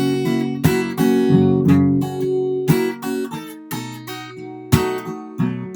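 Acoustic guitar played fingerstyle: picked bass notes under plucked treble notes in a country-blues pattern over an A7 chord. A sharp, accented strike comes a little under five seconds in.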